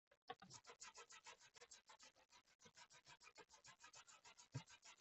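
Toothbrush scrubbing a laptop motherboard wet with alcohol, faint quick back-and-forth strokes several a second, cleaning off corrosion and excess thermal paste. A single soft low knock near the end.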